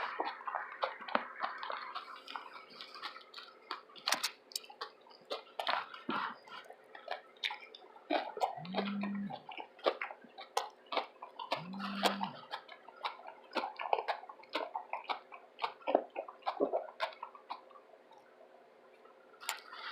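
Close-miked chewing of a loaded veggie tuna sub: irregular wet mouth clicks and crisp crunches. Two short, low, steady hums come about three seconds apart in the middle.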